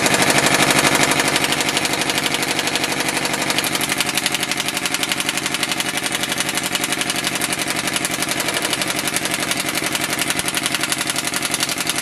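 Pneumatic impact wrench hammering non-stop on a wheel lug nut, a rapid, steady rattle that does not break the nut loose: the lug nut is over-tightened.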